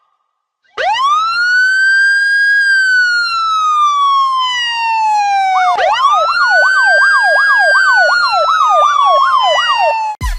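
A siren wails, rising sharply about a second in and then falling slowly. About six seconds in it rises again, with a fast up-and-down yelp of about two sweeps a second laid over the wail. It cuts off just before the end.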